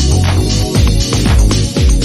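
Electronic dance music with a steady beat and heavy bass drum.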